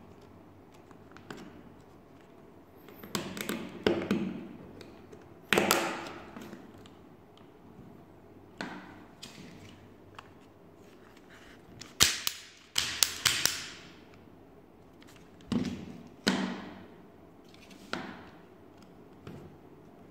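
Laser-cut plywood parts of a UGEARS Wolf-01 wooden model pistol being handled and fitted together: irregular sharp wooden clicks and knocks, with a quick run of several near the middle.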